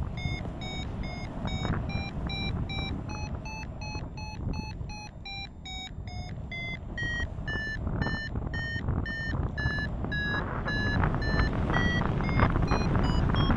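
Paragliding variometer beeping about twice a second, its pitch rising over the first few seconds, then dropping and staying lower: the climb tone, signalling lift that strengthens and then weakens. Wind rushes over the microphone underneath, growing louder in the second half.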